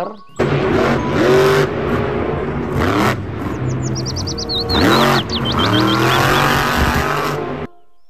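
Monster truck's supercharged V8 revving hard, its pitch climbing in several sweeps; it cuts off suddenly near the end.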